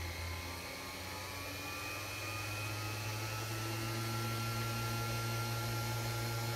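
Unimat DB 200 lathe's small brushed AC motor running on a Variac, a steady hum and whine that climbs slowly in pitch as the Variac dial is turned and the motor speeds up.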